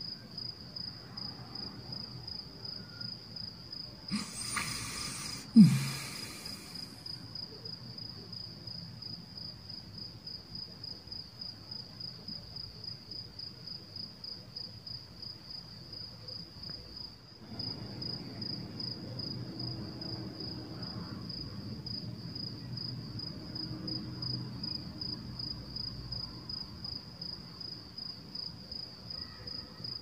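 Steady insect chirping, likely a cricket: one high pitch pulsing a few times a second without a break, over a faint low background. About five seconds in, a brief louder rush of noise ends in a sharp knock.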